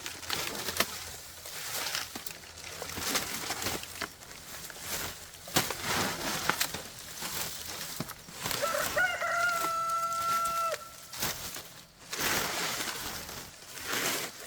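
A rooster crowing once, a long held call about nine seconds in lasting about two seconds. Intermittent rustling and knocks are heard around it.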